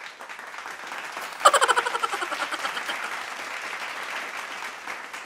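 Crowd applause, starting softly, then swelling sharply about a second and a half in and slowly fading.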